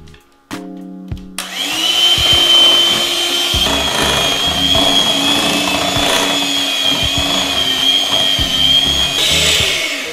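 Electric hand mixer switched on about a second and a half in, running steadily with a high whine as it beats eggs into cake batter, then stopping near the end. Background music with a steady beat underneath.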